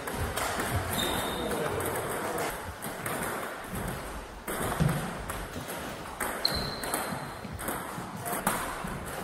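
Table tennis ball tapping off paddles and the table, a handful of sharp clicks spread irregularly, with two short high squeaks.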